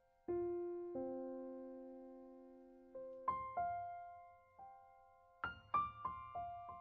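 Background piano music: slow single notes and chords, each struck and left to ring and fade, with a quicker run of notes in the second half.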